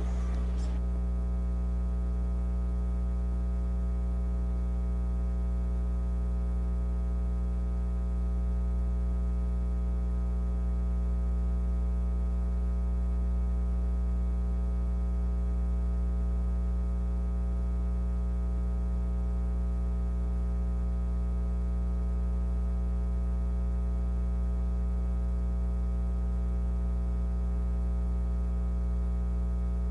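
Steady electrical mains hum in the audio feed, one unchanging low drone with many overtones and no other sound.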